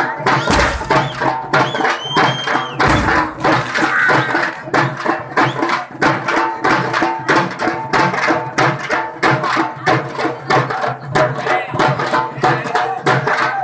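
Loud folk music led by drums: a fast, steady beat with a tune held over it, and two dull low thumps in the first three seconds.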